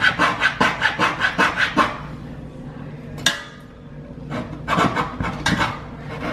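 Coping saw cutting a relief notch into the edge of a wooden shelf: quick back-and-forth strokes, about five a second, then a pause with a single sharp click about three seconds in, and a second, less regular run of strokes.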